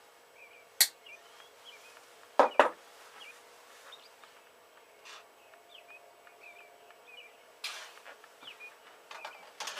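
Sharp plastic clicks and snaps from a new bottle of 3-in-1 oil being opened, loudest as a quick pair about two and a half seconds in. Small birds chirp faintly in the background.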